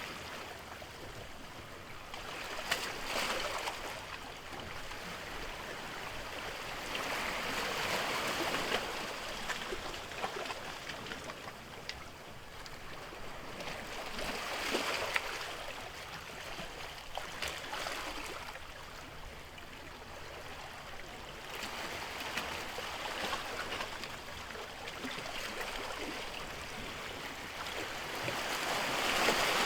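Sea waves washing in, the sound of the water swelling and fading every few seconds.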